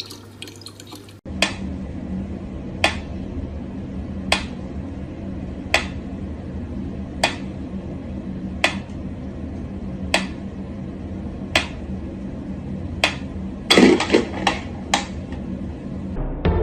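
Mechanical pyramid metronome ticking slowly and evenly, one sharp tick about every second and a half. A brief cluster of louder knocks comes near the end.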